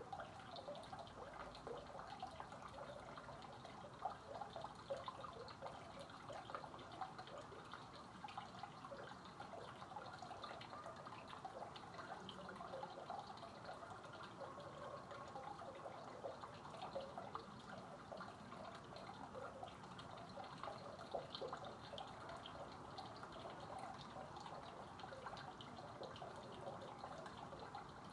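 Faint, steady trickle of water from a stone fountain's pipe spout, dripping and splashing into a shallow pool.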